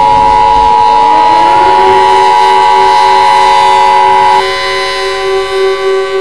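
Emergency Alert System attention signal, a loud steady two-note tone that cuts off about four seconds in. Under it a civil defense siren winds up over the first couple of seconds and then holds a steady pitch.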